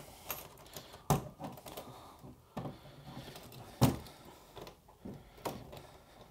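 Metal latch clips on a wooden shipping crate being unclipped, with hands knocking on the wooden lid. There are a handful of sharp clicks and knocks, the loudest about a second in and about four seconds in.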